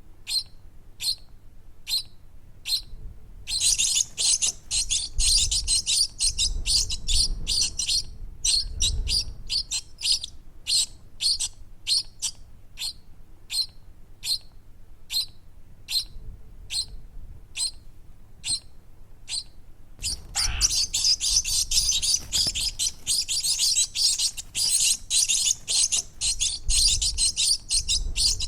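Baby birds chirping: short high chirps repeating about twice a second, breaking into dense, rapid overlapping chirping a few seconds in and again about twenty seconds in.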